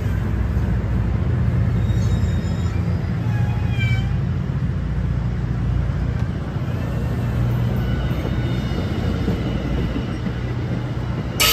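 MARC bilevel passenger coaches rolling past on the track: a steady low rumble of wheels on rail, with a few faint, brief high-pitched wheel squeals between about two and four seconds in.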